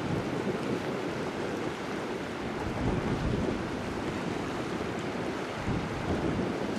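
Wind buffeting the microphone, a steady low rush, over the wash of choppy river water.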